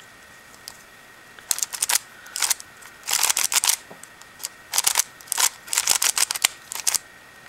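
Shengshou Mr. M magnetic 3x3 speedcube being turned by hand: quick runs of sharp plastic clicks as its layers snap into place, starting about one and a half seconds in. The magnetic snapping makes the turning pretty noisy.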